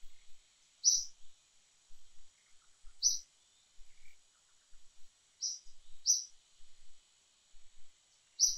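A bird giving short, high chirps, five of them a second or two apart, over a faint steady high-pitched whine.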